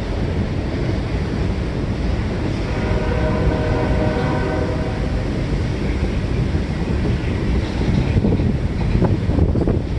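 Diesel freight locomotive's air horn sounding one blast of about two and a half seconds, a few seconds in, over the steady rumble of a moving freight train and wind on the microphone.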